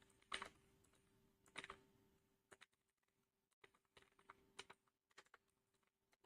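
Faint computer keyboard keystrokes, a dozen or so irregular clicks, as a question is typed in.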